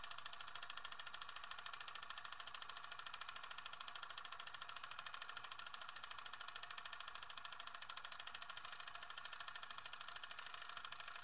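Film projector running: a rapid, even mechanical clatter that does not change.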